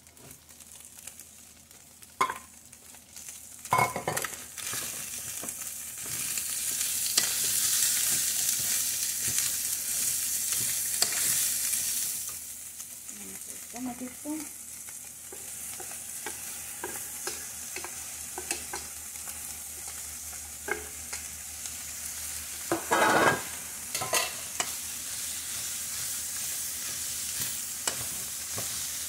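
Pork chicharrón frying in its rendered fat in a metal pot, sizzling as chopped onion, green pepper and tomato are tipped in and stirred with a wooden spoon. The sizzle swells about six seconds in and eases after about twelve, with scattered knocks of the bowl and spoon against the pot, the loudest a few seconds before the end.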